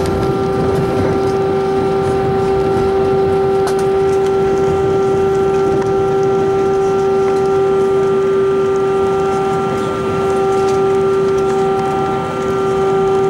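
Airbus A321 jet engines running steadily at taxi power, heard inside the cabin over the wing: a steady hum made of several held tones over a low rumble.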